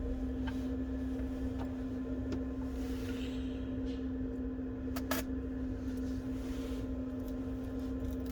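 A steady electrical hum at one even pitch, with a few light clicks from small tools handling phone parts, the clearest a double click about five seconds in.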